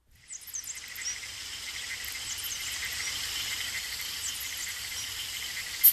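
Insects chirring steadily, with short high bird chirps scattered over them, a nature-sound intro. Right at the end there is one sharp, bright hit.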